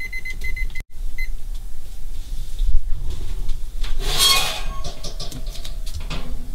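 Digital kitchen timer beeping in a rapid string for about a second, then stopped. About four seconds in, the metal oven rack slides out of the open oven with a short scraping clatter.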